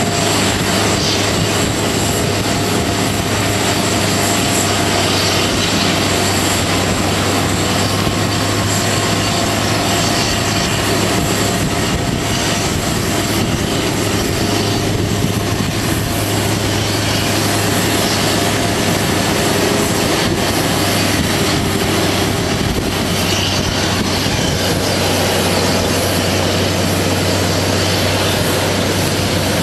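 Steady jet airliner engine noise: a continuous rumble with a thin high whine over a low hum, holding level throughout.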